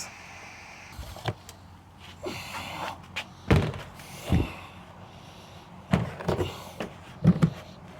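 A litter box being fitted into a wooden enclosure: a series of irregular knocks and thuds, with a short stretch of scraping, as it bumps against the wooden frame while being pushed into place.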